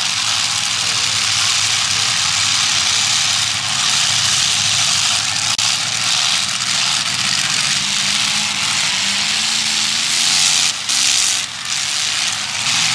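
Demolition derby cars' engines running together with a steady wash of noise, briefly dropping a little after ten seconds in.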